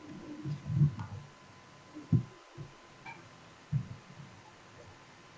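Several soft, low thumps, spaced unevenly over a few seconds.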